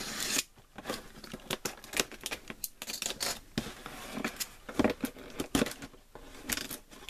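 Packing tape on a cardboard parcel being cut open and pulled, with irregular crackles, scrapes and knocks as the box is handled and turned over.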